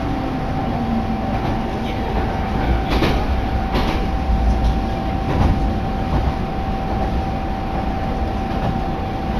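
Diesel railcar running along the track, heard from aboard: a steady rumble with a constant whine, and two sharp clacks of the wheels over rail joints about three seconds in.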